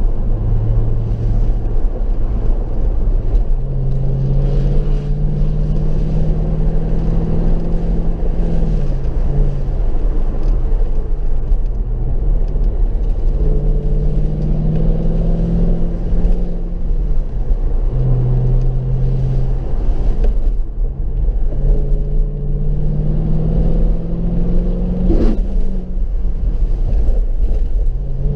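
Mercedes-Benz SLK 55 AMG's V8 engine pulling on a wet road, its note climbing over several seconds and then dropping back several times as the car speeds up, eases off and changes gear, over a steady low road rumble. There is a single sharp knock a little before the end.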